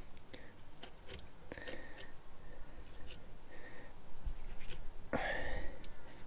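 Fillet knife slicing and scraping along a redfish's rib bones and backbone, with scattered small clicks and scrapes as the fillet is worked free. A short, louder breathy rasp about five seconds in.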